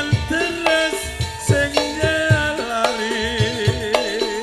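Live Javanese gamelan music: a steady beat of low drum strokes under ringing gong-chime notes, with a wavering melody running over them.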